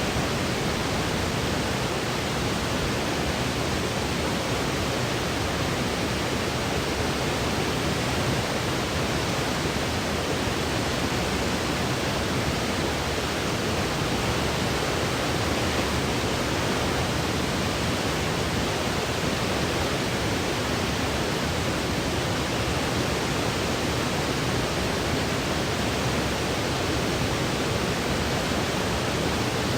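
Steady electronically generated sleep-aid noise: an even hiss that does not change.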